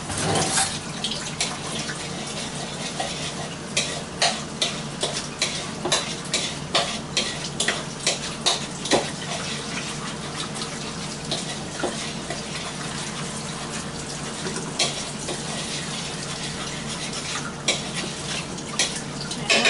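Kitchen utensils clinking against bowls and dishes in irregular light clicks, over a steady low hum and water running in the sink as chicken is rinsed.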